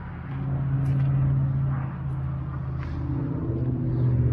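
A motor vehicle's engine running with a steady low hum. It gets louder about half a second in and changes pitch around three seconds in.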